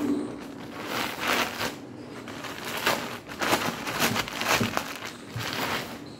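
A plastic courier mailer and the clear plastic bag inside it crinkle and rustle as hands handle and open the packet, in irregular crackles.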